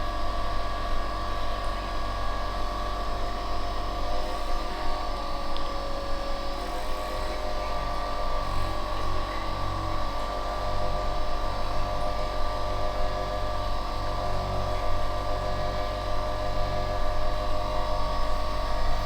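Handheld electric massager running with a steady motorised buzz, held on tense back muscles.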